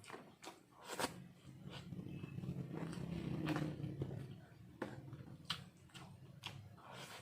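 Close-up mouth sounds of a person eating: chewing with wet lip smacks and sharp mouth clicks every half second to a second, over a low murmur that grows louder in the middle.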